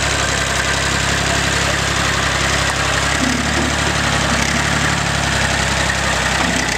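Front-loader tractor's engine running steadily.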